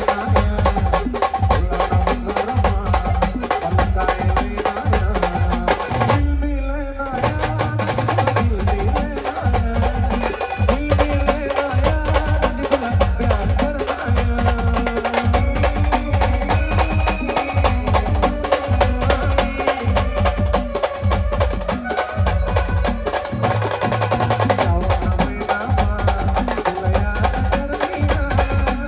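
Indian brass band music: drums beat a steady, driving rhythm under a held melody line. About six seconds in, the higher sounds drop out for a moment before the full band returns.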